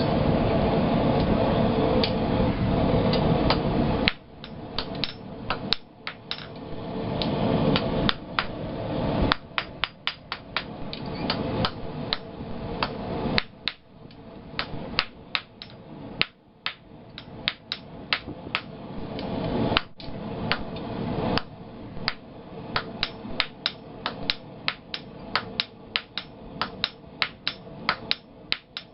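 Hand hammer striking a half-inch round steel bar on an anvil in runs of quick blows, each with a short ring. A loud steady rushing noise covers the first four seconds and then stops suddenly.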